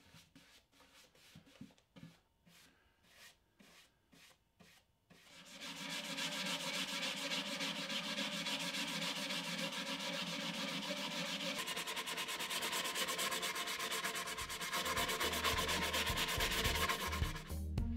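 Faint strokes of a paintbrush across plywood, then from about five seconds in, a sheet of sandpaper rubbed by hand in quick back-and-forth strokes along the top edges of a plywood box: a steady scratchy sanding noise. Background music comes in under it near the end.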